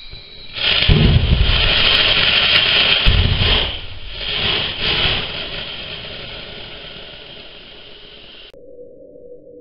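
Homemade nitric acid and diesel liquid-fuelled rocket engine firing: a harsh rushing noise that starts about half a second in, surges unevenly for about four seconds, then dies away.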